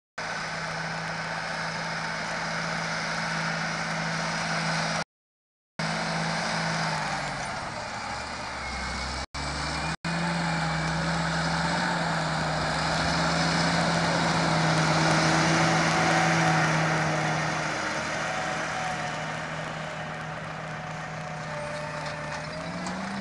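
John Deere 8R tractor's six-cylinder diesel engine drones steadily under load while it pulls a seedbed cultivator, with a hiss over it. The sound grows louder as the tractor passes close, around the middle. It drops out briefly at about five seconds and twice more, very briefly, at around nine to ten seconds.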